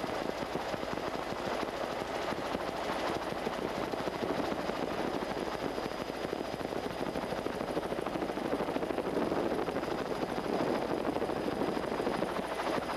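Steady helicopter rotor and engine noise, heard from on board.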